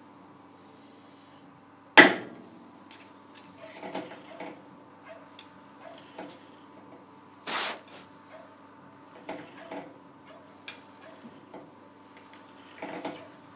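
Metal clinks, knocks and a short scrape from adjusting the jaws of a four-jaw lathe chuck with the chuck key and turning the chuck by hand, while the workpiece is dialled in to run true. A sharp knock about two seconds in is the loudest, over a faint steady hum.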